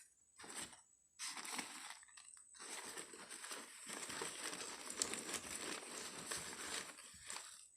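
Packaging crinkling and rustling as it is handled during unwrapping: short bursts at first, then almost continuous from about two and a half seconds in.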